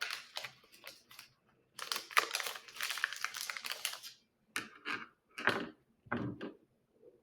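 Plastic packaging of IV supplies crinkling and crackling as it is handled, with a dense run of crackle in the middle and a few separate rustles near the end.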